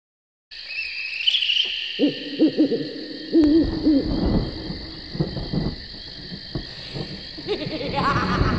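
Owl hooting: repeated short hoots in groups from about two seconds in, over steady high-pitched tones.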